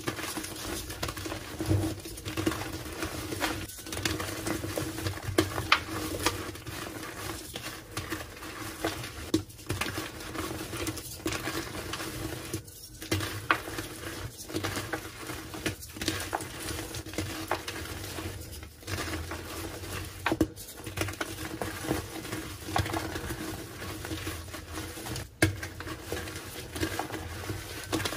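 Reformed gym chalk blocks being crushed and crumbled by hand into loose powder: continuous dense crackling and soft crunching, with a few brief breaks.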